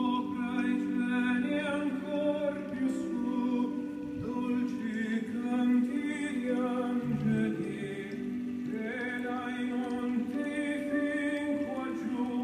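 Choral singing in slow, long-held phrases, with short breaks between phrases.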